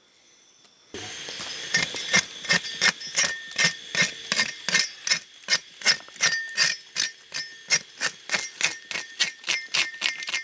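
Open fire of sticks and palm fronds crackling, with sharp pops about four times a second over a steady hiss. It starts suddenly about a second in.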